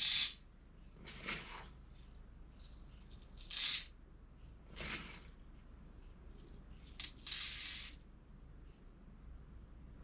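Copper-plated No. 6 lead shot pellets rattling as they are poured and dropped while a shotgun shot charge is measured out: several short separate rattling bursts, the loudest right at the start, in the middle and near the end.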